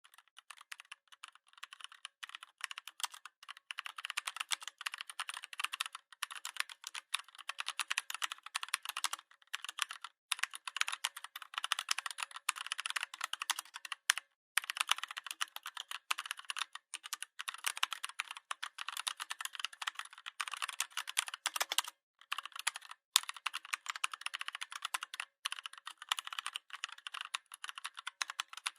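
Computer keyboard being typed on: a fast, continuous stream of key clicks with brief pauses now and then.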